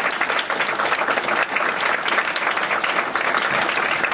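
Audience applauding, many people clapping together in a dense, steady patter.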